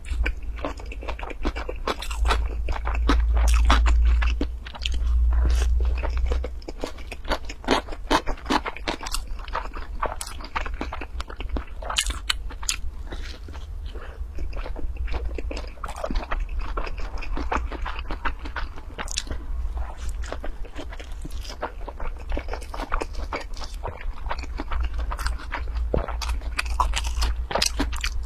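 Close-miked biting and chewing of rice-paper rolls stuffed with spicy noodles, shrimp and greens: a dense run of crunches and wet mouth clicks. A deep rumble sits under the chewing for a few seconds near the start.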